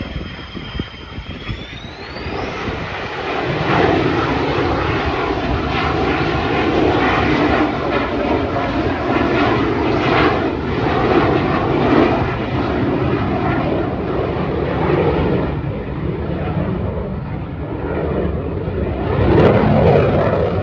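Military fast jet flying a display pass overhead. A high whine rises in pitch about two seconds in, then loud continuous jet engine noise holds, swelling again near the end.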